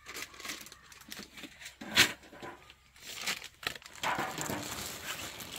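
Crinkling and rustling of wrapping as breakfast burritos are handled and wrapped, with one sharp knock about two seconds in.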